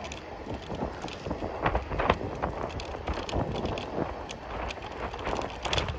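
Martı rental electric kick scooter riding along pavement: a steady low rumble from the wheels and wind on the microphone, with irregular clicks and knocks over bumps, several close together about two seconds in.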